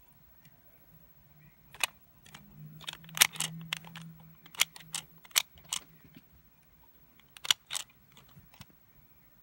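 Sharp plastic clicks and snaps from a Kamen Rider Ghost DX Eyecon toy being worked by hand: an uneven run of clicks from about two seconds in to about six, then two more clicks near the end.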